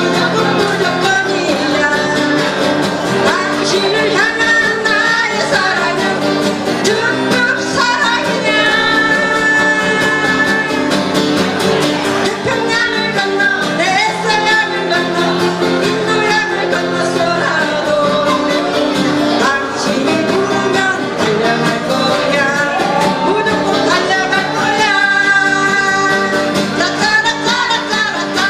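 Acoustic guitars strummed together while voices sing into microphones, playing a Korean trot medley through a small PA speaker.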